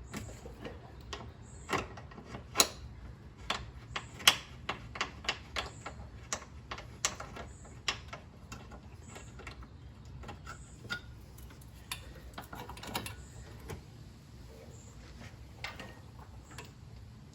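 Wrenches clicking and clinking against a brake hose fitting as it is worked loose. Sharp, irregular metal clicks come close together for the first half and are sparser later.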